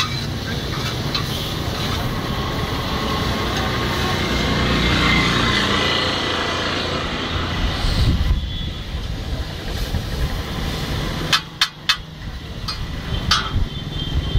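Noodles stir-frying on a large flat metal griddle (tawa): a steady sizzle with a metal spatula scraping, easing off about eight seconds in. About eleven seconds in comes a quick run of sharp metal clacks, and another near the end, over street traffic.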